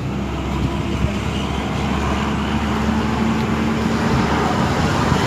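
A motor vehicle engine running with a steady low hum; its higher tone drops away about four seconds in.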